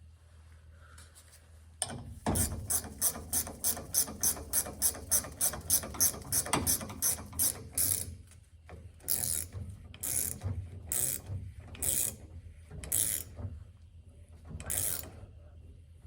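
Ratchet wrench turning a bolt with rapid, even clicks, about four a second for several seconds, then slower separate ratchet strokes about once a second.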